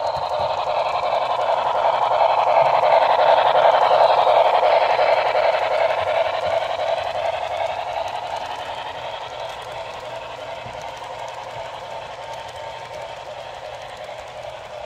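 HO-scale model passenger train rolling past close by: wheels running on the track and the locomotive's running sound. It grows louder to a peak a few seconds in, then fades steadily as the cars go by.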